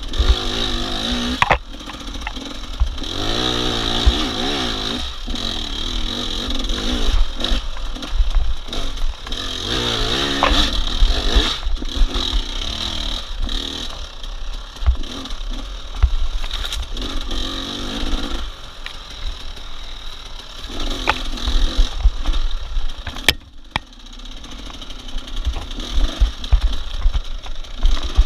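A racing vehicle's engine revving up and down again and again, with a heavy low rumble and knocks throughout. The engine cuts out briefly about 23 seconds in.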